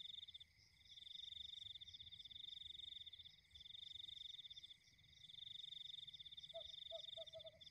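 Frogs and insects calling: a high, pulsed trill runs in long stretches with brief breaks, over a fainter steady high tone. Near the end comes a quick run of low croaks.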